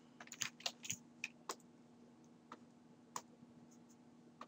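Faint clicks of computer input while working at a desk: a quick run of about eight in the first second and a half, then three single clicks a second or so apart.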